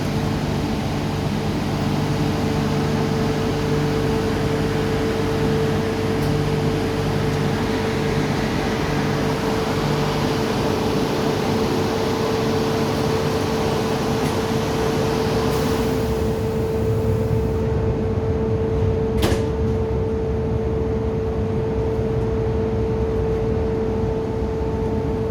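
Steady interior hum of an MTR Kwun Tong Line Q-train carriage: a constant tone over an even ventilation-like rush. The higher hiss thins out about two-thirds of the way through, and a single sharp click sounds shortly after.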